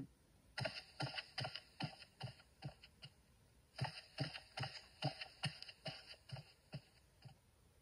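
Faint soft taps or thumps in a steady rhythm of about two a second, in two runs of about eight with a short pause around three seconds in.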